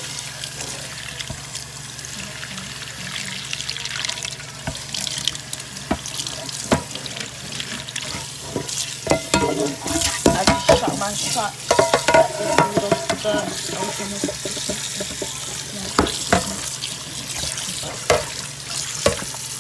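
Cold tap water running steadily from the spout of a faucet-mounted water filter into a stainless steel sink. Sharp knocks and clatter come and go around the middle and again near the end.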